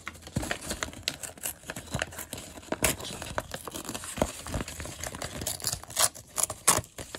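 A folded paper instruction leaflet being torn and handled: irregular crinkling, ripping and small paper snaps, with a few louder crackles near the end.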